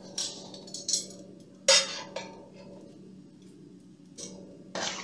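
Metal tongs clinking and scraping against a stainless steel bowl of marinated pork, in about six sharp clatters; the loudest comes a little under two seconds in.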